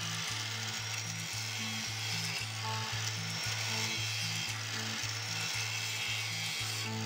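Angle grinder grinding the broken stub of a motorcycle side-stand sensor pin down flat against steel, a steady hissing grind throughout. Background music with a steady beat plays underneath.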